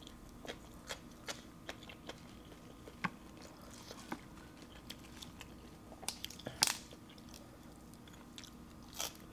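Close-miked chewing with small wet mouth clicks, and crisp snaps and tearing as fresh radish greens are pulled apart by hand. The loudest snaps come about two-thirds of the way in.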